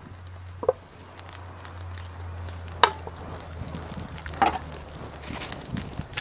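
Wood fire flaring up on lighter fluid, crackling, with a few sharp pops.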